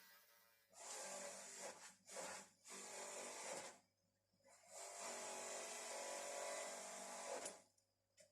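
Electric polisher running, with metal spanners pressed against it in four bursts of hissing grind; the longest lasts about three seconds, from just before halfway.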